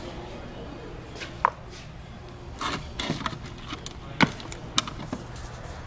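Scattered light clicks and taps of cups and creamer being handled at a coffee station, over a steady low hum.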